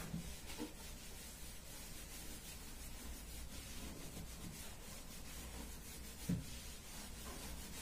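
Faint rubbing of a wet cloth wiping the inside of an upper kitchen cabinet, with a soft knock about six seconds in.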